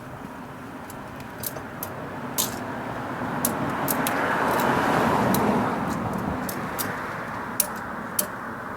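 Ratchet tie-down strap clicking, sharp single clicks about once a second as it is cranked down to compress the motorbike's front fork. A passing vehicle swells up and fades away around the middle, the loudest sound.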